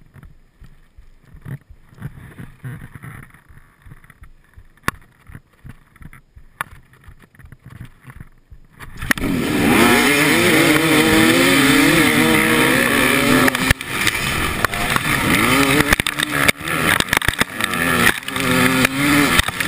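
Enduro motorcycle engine ticking over quietly, with a couple of sharp clicks. About nine seconds in, it revs hard as the bike launches from the start, its pitch rising and dropping as it accelerates across loose dirt.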